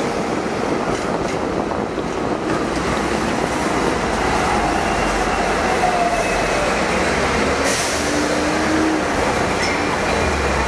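Hong Kong double-decker electric tram running along its street track, heard from on board: a steady rumble and rattle of the wheels on the rails, with one brief sharp clack about two-thirds through.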